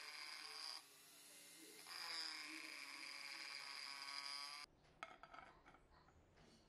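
Small handheld rotary tool spinning a sanding drum against the inside of a charcoal iron's wooden handle, a steady high whine. It drops off just under a second in, starts again about two seconds in, and cuts off suddenly near two-thirds through, followed by a few faint clicks.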